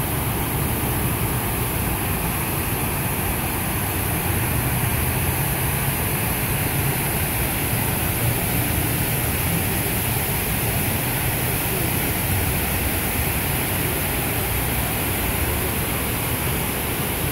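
Steady rush of water from the 9/11 Memorial's reflecting-pool waterfall, pouring down the pool's stone walls into the basin.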